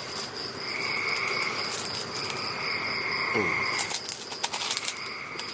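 Night-time chorus of calling insects and frogs: a steady high trill with a lower trill that comes and goes in stretches of about a second. A few light clicks and rustles come between about four and five seconds in.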